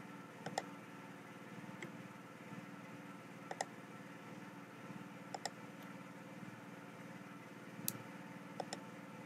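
Computer mouse clicks, about six of them, most in quick pairs like a button pressed and released, over a low steady hum of room and computer noise.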